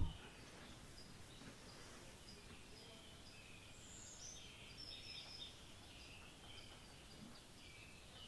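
Faint background ambience with small birds chirping off and on over a steady low hiss.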